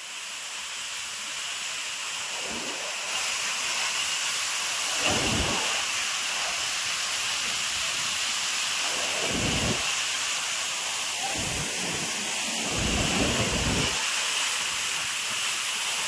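Soochipara waterfall's rushing water as a steady hiss, with a few deeper rumbling swells that come and go.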